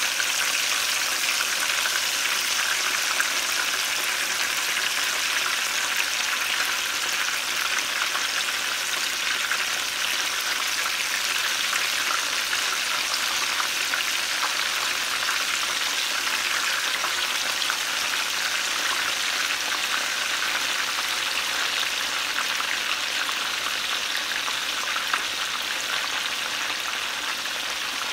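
Pork rib pieces frying in hot oil in a frying pan: a steady, loud sizzle that starts suddenly as the meat goes into the oil.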